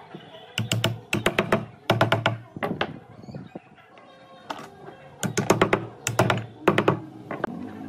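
Hammering on wood: bursts of quick sharp blows, about five a second, several bursts with short pauses between.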